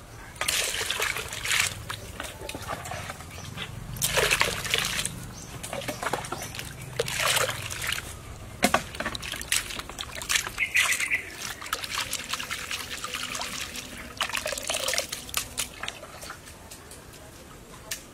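Hands sloshing and rubbing diced aloe vera gel in a basin of water, in repeated bursts of splashing and trickling, with one sharp tap about halfway through.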